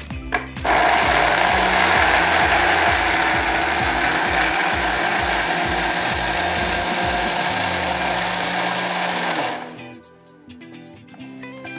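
Electric countertop blender running, grinding chillies, shallots and garlic with water into a paste. It switches on under a second in, runs steadily for about nine seconds, then cuts off.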